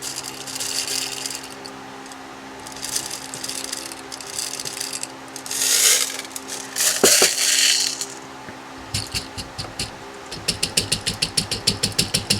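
Number 4 birdshot pouring and rattling through a makeshift can funnel into holes in a synthetic rifle stock, in several separate pours. Near the end comes a fast run of sharp ticks.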